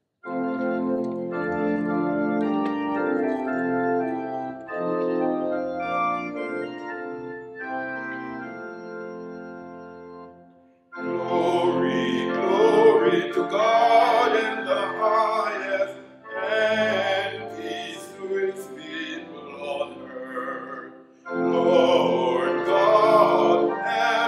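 Organ playing sustained chords as an introduction. After a brief break about 11 seconds in, a solo voice begins singing over the organ accompaniment.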